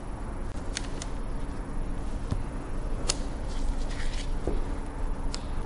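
Windshield cut-out tool being worked through the old urethane bead around the glass: a steady low noise with a few sharp clicks.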